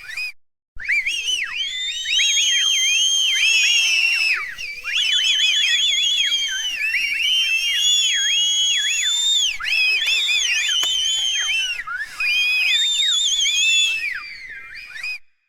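A crowd whistling: many high whistles overlapping at once, each gliding up and down in pitch. The sound breaks off briefly just after the start, then runs in long stretches with short dips and fades out near the end.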